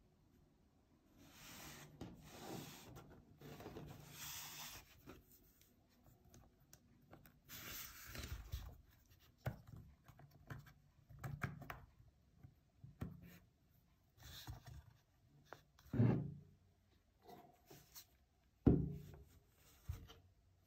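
Hands handling a tablet and its packaging: rubbing, rustling and small knocks, with two low thumps in the last five seconds as the loudest sounds.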